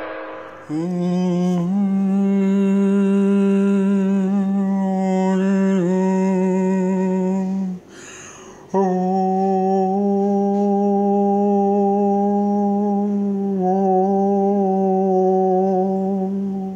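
A man humming two long, steady notes of about seven seconds each at one pitch, with a breath taken between them, ringing in a small tiled room.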